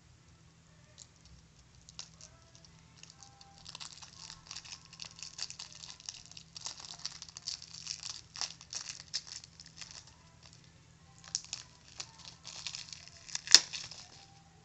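A new deck of playing cards being unwrapped: the plastic wrapper crinkling and tearing in quick, irregular crackles, with one sharp click near the end.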